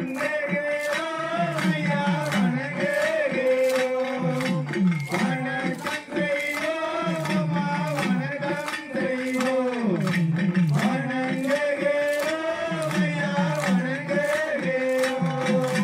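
Male singing of an Oyilattam folk-dance song in a chanting style, the melody wavering and ornamented, over percussion struck in a steady quick beat.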